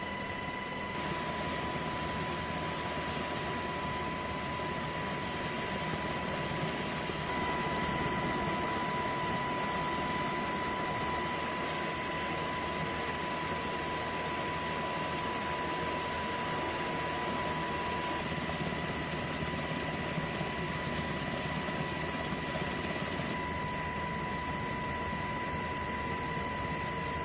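Steady machinery noise with a constant high whine, shifting slightly at several abrupt cuts.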